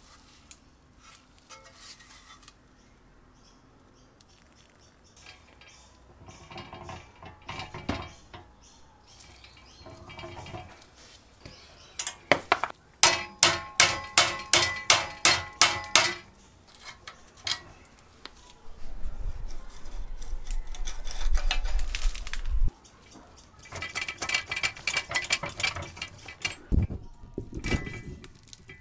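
Rusty steel tricycle parts being handled and worked on: scattered light clinks, then a quick run of ringing metal taps at about four a second. A low rumble follows and stops abruptly, and more ringing metal clinks come near the end.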